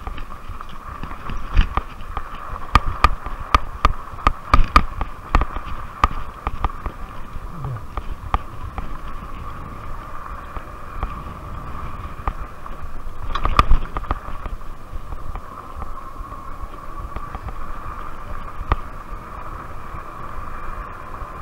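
Rad Rover fat-tire e-bike riding a bumpy dirt trail: its 750-watt rear hub motor whines steadily while the bike rattles and knocks over the ruts, the knocks thickest in the first several seconds, with a hard jolt about thirteen seconds in. A low wind rumble sits underneath.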